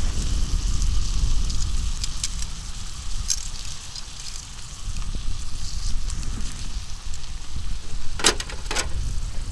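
Food sizzling on an iron griddle over a wood fire, with crackling and scattered sharp pops, the two loudest pops near the end, over a low steady rumble.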